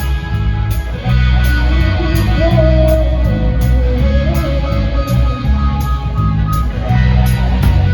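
Rock music from a band: electric guitar over a heavy bass and drum groove with steady cymbal hits. A bending lead guitar line comes in, and the playing gets louder about a second in.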